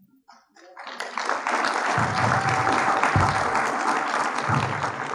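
Audience applause, a dense crackle of many hands clapping that starts about a second in, holds steady, and begins to die away near the end.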